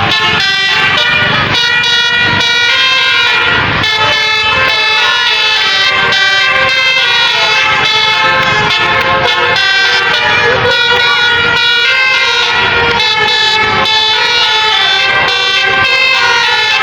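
Tour bus 'basuri' musical air horn playing a tune, its multi-trumpet tones switching from note to note without a break.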